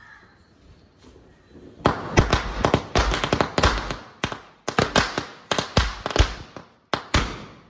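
Small firecrackers bursting in a rapid, uneven series of sharp bangs, starting about two seconds in, with a couple of brief pauses, and stopping at the end.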